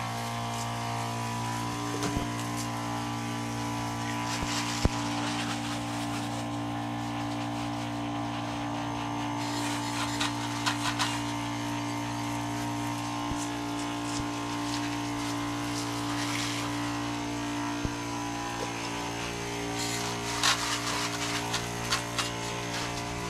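Electric pump of a backpack sprayer converted from a hand-pump model, running with a steady hum while the lance sprays liquid in a fine hiss. A few light knocks are heard, the clearest about five seconds in and near the end.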